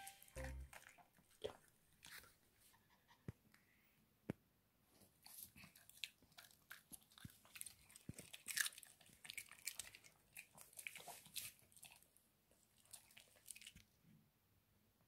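Maltese dog biting and chewing pieces of raw cucumber: a run of crisp, wet crunches.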